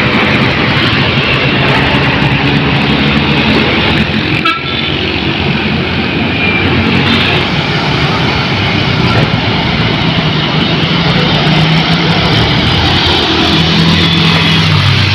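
Heavy road traffic with large buses and trucks passing close, engines and tyres loud, with short horn toots; one engine note rises and then drops near the end.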